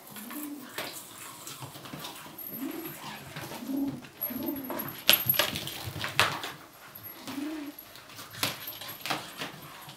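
American Curl kitten giving several short, low, owl-like hooting growls while guarding a toy, a defensive warning to the other kitten. Sharp clicks and knocks are heard among the calls, the loudest a little past the middle.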